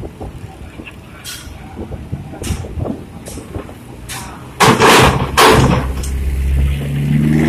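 A bus at a ferry loading ramp: scattered knocks and clanks, then two loud hissing bursts about halfway through, then its diesel engine running and revving, the pitch rising near the end.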